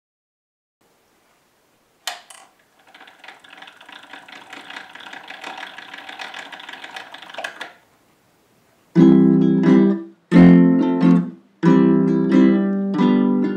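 A gravity-powered wooden automaton's mechanism is set off with a click, then runs with a faint, fast whirring rattle from its gear train and spinning brass fly fan for about five seconds before stopping suddenly. About nine seconds in, strummed acoustic guitar music starts and is the loudest sound.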